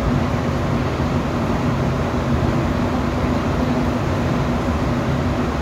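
Rubber-tyred Montreal metro train running at speed through a tunnel: a steady rushing running noise with a constant low hum.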